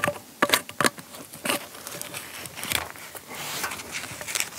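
Irregular clicks, knocks and scuffs of hands and tools working on an awning ground screw to loosen it.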